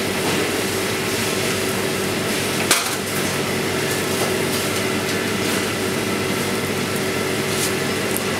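Steady hum and hiss of a commercial kitchen running, with a held low tone, and one sharp click a little under three seconds in.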